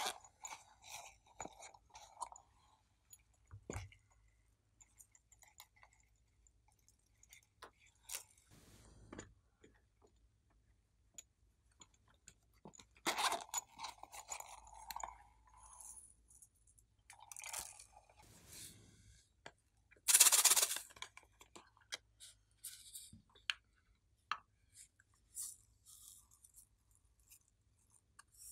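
Close-up handling of small plastic makeup cases and glitter being shaken out onto a tray of white slime: scattered clicks, taps and crackly scrapes, with a louder rushing scrape lasting about a second about two-thirds of the way through.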